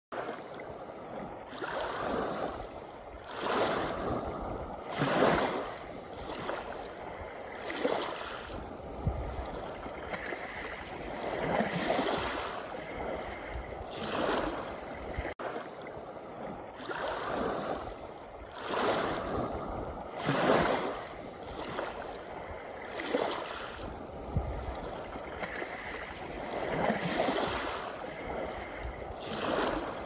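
Small sea waves washing onto a pebble beach: a steady rush of water that swells and falls back every two to three seconds.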